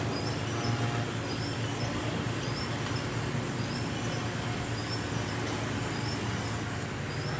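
Tour tram running steadily with a low hum of motor and rolling noise, with faint short high squeaks about once a second.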